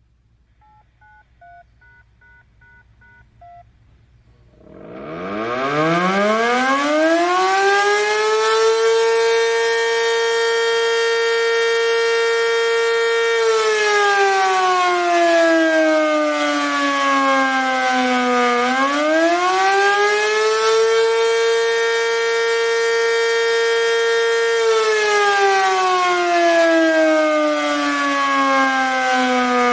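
ACA Banshee 115 outdoor warning siren sounding the attack signal. It winds up from silence about four and a half seconds in, holds a steady pitch, then falls and rises again in slow cycles of several seconds. Before it starts, a radio scanner gives a few short, faint activation beeps.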